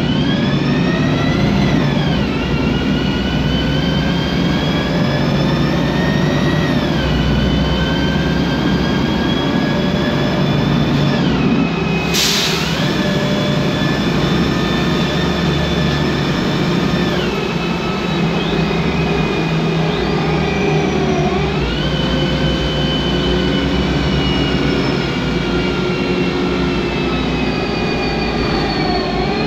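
MAN Lion's Classic city bus heard from inside the cabin: its MAN E2876 CNG engine and Voith DIWA 864.3 automatic gearbox give a noisy whine that climbs in pitch and drops sharply at each gear change, several times over as the bus drives. A brief sharp noise about twelve seconds in.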